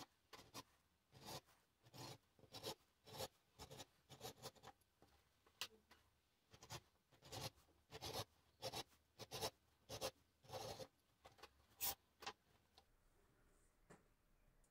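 Thread being drawn through stitching holes in a leather strap during hand stitching: a run of short rasps, about two a second, stopping about 12 seconds in.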